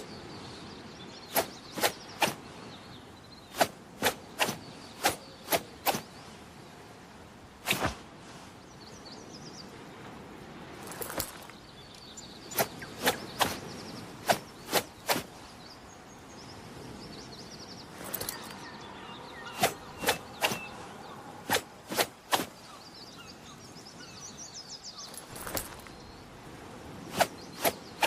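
A sword making many short, sharp swishing strokes, singly and in quick runs of two to four with pauses between, over a faint background of birds and insects.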